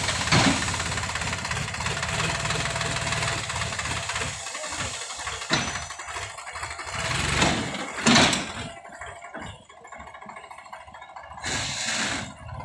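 Tractor diesel engine running steadily, powering a raised hydraulic tipping trolley, with a few sharp knocks over it; the engine sound is fainter from about eight seconds in.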